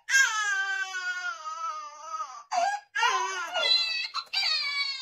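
High-pitched crying like a baby's wail: one long cry that falls in pitch, then two shorter wavering cries.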